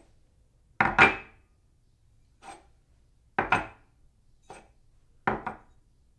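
A china cup set down on its saucer three times, each placement a quick double clink with a short ringing tail, with lighter taps in between as the cup is lifted.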